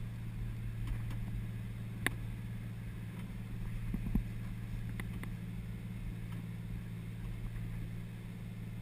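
Detroit Diesel 6-71 two-stroke diesel engine running at a steady speed, a low even drone, with a few light clicks.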